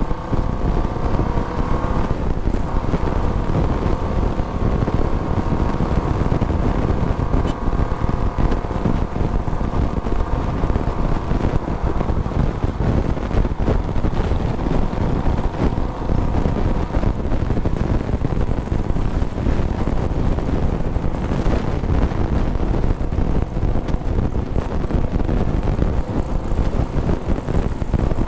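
Cruiser motorcycle's engine running while riding at steady road speed, its note rising slightly at first and then holding steady, with wind buffeting the microphone.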